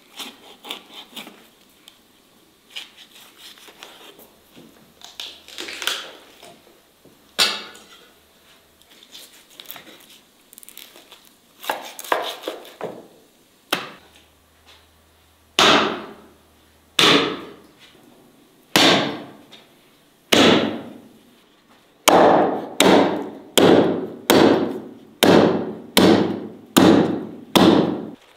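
Heavy meat cleaver chopping through lamb meat and bone onto a thick wooden chopping board. Scattered softer knocks come first, then a run of about a dozen loud chops, each ringing briefly; they come about one every second and a half at first and quicken to nearly one a second near the end.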